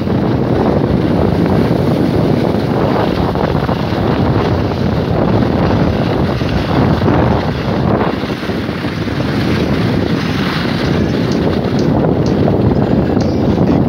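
Wind buffeting a phone's microphone while skiing downhill, a loud steady rushing noise.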